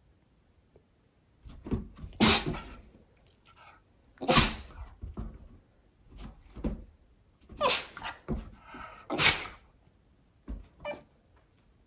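Shiba Inu sneezing repeatedly: four loud, sharp sneezes a few seconds apart, with quieter snorts and sniffs between them and near the end.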